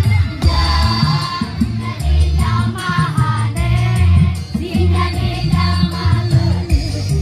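A choir of schoolchildren singing together over loud music with a heavy bass line that changes note every second or so.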